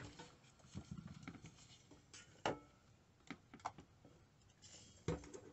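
Faint scraping and light clicks of a silicone spatula working toasted sesame seeds across a mini griddle's nonstick plate, with a few sharper taps and a duller knock near the end as the griddle is handled and tipped.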